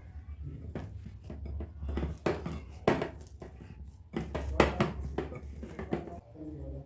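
Bread dough being kneaded by hand in a bowl: irregular knocks and thumps as it is pressed and turned, loudest about three and four and a half seconds in, over a low steady hum.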